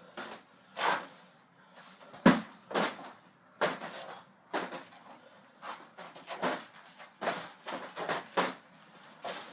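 Punches landing on a heavy bag: a dozen or more sharp slaps in uneven flurries of combinations, the hardest about two seconds in.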